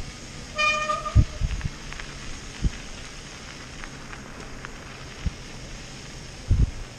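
Mountain bike riding on a packed-snow trail: steady tyre and wind noise on the camera microphone, with occasional low thumps from bumps. A brief high-pitched tone sounds about half a second in.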